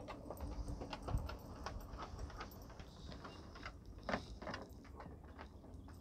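Belgian Malinois's claws clicking irregularly on wooden deck boards as she walks about, with a low thump about a second in and a louder sound a little after four seconds.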